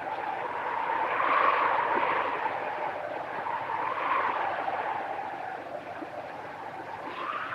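Wind howling on a film soundtrack: a steady rushing noise that rises and falls in pitch in slow gusts every couple of seconds.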